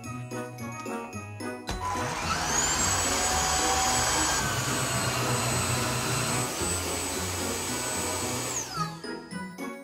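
Tineco Floor One S5 Combo wet-dry stick vacuum switching on about two seconds in, its motor whine rising quickly to a steady high pitch over a rushing of suction. It then runs down and stops near the end.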